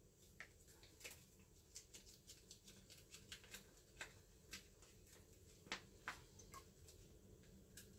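Faint crinkling and crackling of a plastic food pouch being handled and emptied into a pot, a scatter of small clicks with one sharper crackle near the middle.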